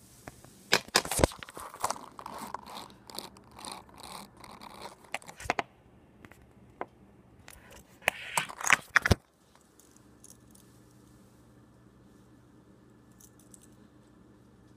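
Handling noise from a phone held close to its own microphone: rustling and scraping with several sharp knocks and clicks as fingers cover and shift the phone. A final cluster of knocks comes about eight to nine seconds in, and then the sound cuts off, leaving only faint hiss.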